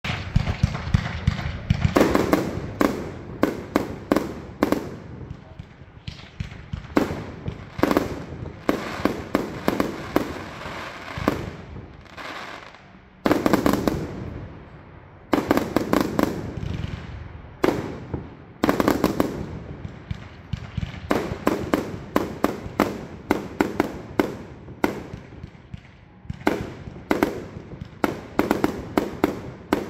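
Jorge CB17 Dragon compound firework cake firing: rapid, irregular volleys of sharp shots launching and bursting, with a couple of brief lulls between volleys.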